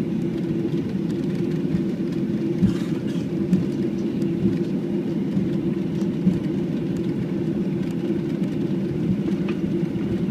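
Boeing 737-800 cabin noise while taxiing after landing: the steady hum and rumble of the CFM56 engines at low thrust, with a few light bumps from the wheels.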